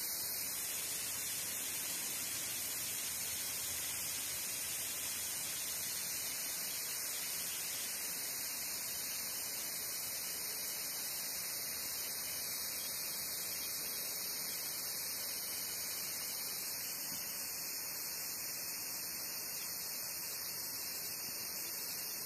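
Aerosol spray can discharging continuously through its nozzle straw: a steady, even hiss.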